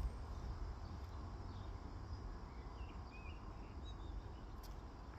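Quiet outdoor background: a low steady rumble with a few faint bird chirps about halfway through.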